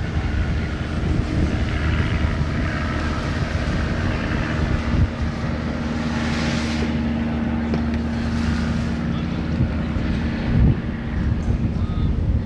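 Piper Super Cub's piston engine and propeller droning steadily as the plane climbs away, with wind buffeting the microphone.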